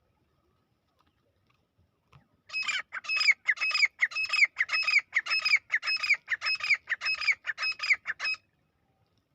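Dakhni teetar partridge calling: a fast run of loud, repeated, shrill notes, about four a second, starting a couple of seconds in and stopping abruptly about a second before the end.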